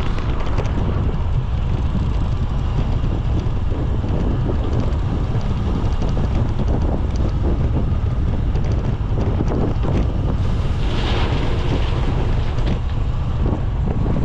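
Wind buffeting the microphone of a cyclist riding along, a steady low rumble. A brief hissing swell rises and fades about eleven seconds in.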